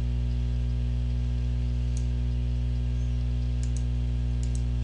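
A steady low electrical hum on the recording, with a few quiet computer mouse clicks: one about two seconds in, then two quick pairs near the end.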